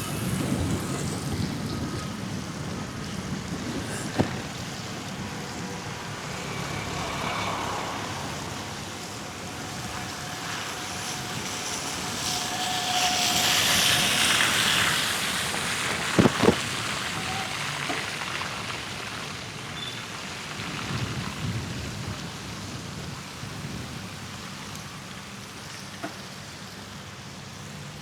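Wind rumbling on the microphone and a steady hiss of bicycle tyres on a wet, snowy street during a ride. A louder hiss swells and fades around the middle, and two sharp knocks come a little after.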